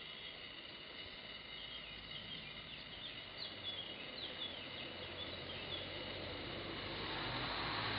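Outdoor ambience: a run of quick, high bird chirps through the middle over a steady high-pitched whine, with the noise of a passing vehicle swelling near the end.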